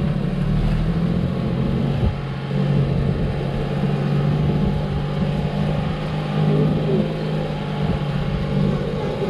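Glass-bottom boat's engine running steadily with a low hum as the boat moves slowly over the coral.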